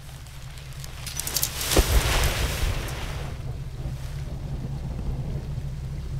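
A low rumbling drone with a sudden rush of noise that swells about a second in, peaks in a heavy thump near two seconds, then settles back into the steady rumble.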